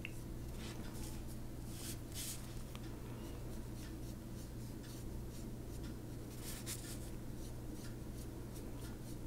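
Faint, soft strokes of a tiny damp paintbrush on paper, moving water-soluble pencil color, clearest about two seconds in and again past six seconds. A steady low hum runs underneath.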